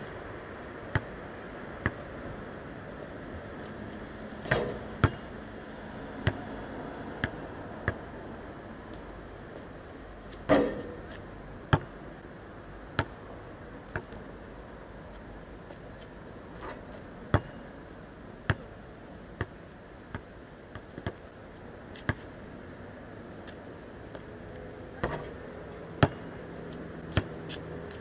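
Basketball bouncing on an asphalt court: sharp, irregular slaps about once a second, with a few louder impacts that ring on briefly, three times.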